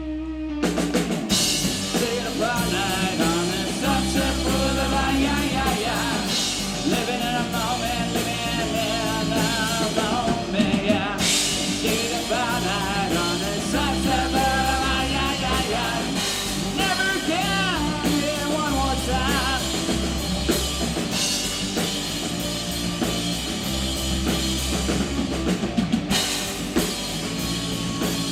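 Live rock band playing a song with a full drum kit keeping the beat. After a held note at the very start, the whole band comes in about half a second in.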